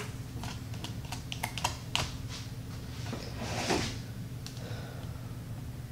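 Paper release liner being peeled off strips of double-sided tape on a frame's backing board. A quick run of small clicks and ticks in the first two seconds, then a brief rustle about three and a half seconds in.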